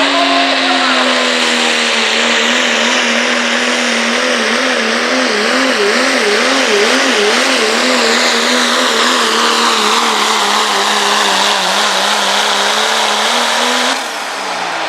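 Diesel pickup truck's engine running hard at full throttle under heavy pulling load, with a steady loud pitch. About six seconds in, the pitch wavers rapidly up and down for a few seconds, then steadies. The engine sound drops away near the end.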